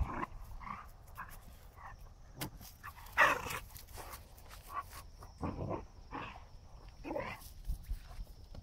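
Two young Portuguese water dogs barking in short separate bursts as they play-fight, the loudest bark about three seconds in.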